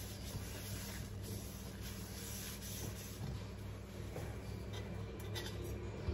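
Paper towel rubbing around the inside of a nonstick frying pan, wiping it dry, over a low steady hum.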